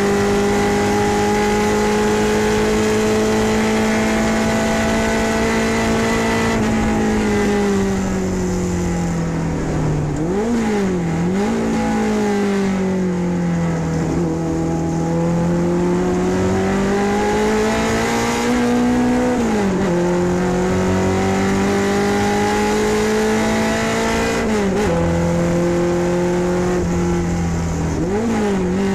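Ford Pinto race car's engine heard from inside the car, running at high revs on track. It holds steady, falls off under braking with two quick throttle blips on downshifts about ten seconds in, then climbs again through the gears with sharp drops at two upshifts, and blips once more on a downshift near the end.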